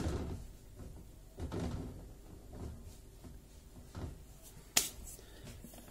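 Dull thumps and knocks of piadina dough and kitchen things being handled on the kitchen table, with one sharp click about five seconds in.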